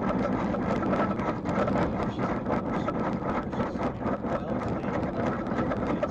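Steady road and tyre noise of a car driving on a highway, heard from inside the cabin through a dashcam's microphone, with many small knocks and rattles throughout.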